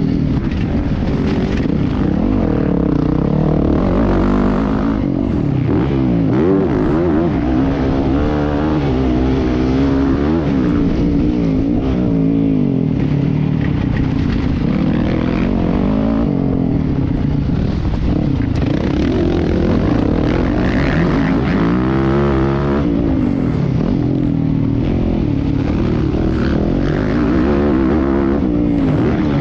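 Motocross bike engine revving hard and dropping back over and over as the rider accelerates, shifts and backs off through the corners. Heard from a camera on the rider's helmet.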